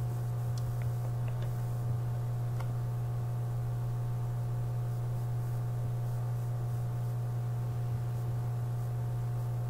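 Steady low electrical hum with fainter steady higher tones above it. A few faint soft clicks come in the first few seconds.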